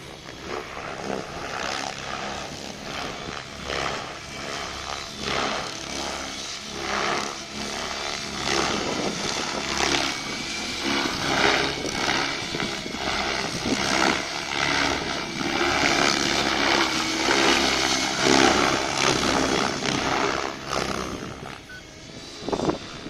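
Radio-controlled model helicopter in flight, its rotor and motor noise rising and falling in uneven surges as it manoeuvres.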